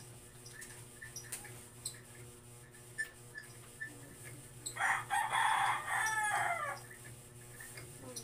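A rooster crowing once, a harsh call about two seconds long that starts about five seconds in and falls in pitch at its end.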